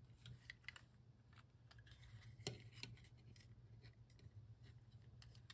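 Near silence with a few faint, scattered light clicks and ticks of small plastic model-engine parts being handled and fitted by hand, over a low steady hum.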